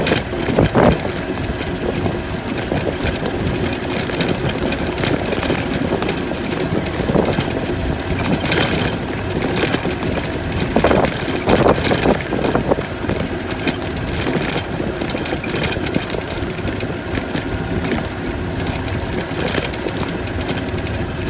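Golf cart running steadily as it drives over grass, with a few short louder knocks along the way.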